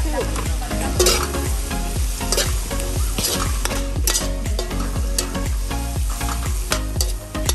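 Vegetables stir-frying in a steel wok over a propane camp burner: steady sizzling, with a metal utensil scraping and knocking against the wok about once a second.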